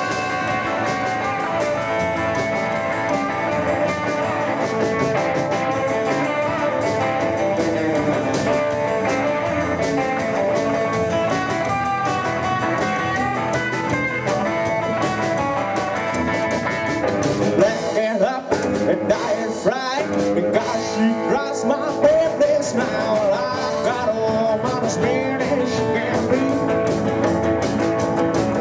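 Live rockabilly band playing an instrumental break: electric guitar lead over rhythm guitar, upright double bass and drums, with no vocals. About 18 seconds in the playing drops out briefly, then comes back with sharper, punchier accents.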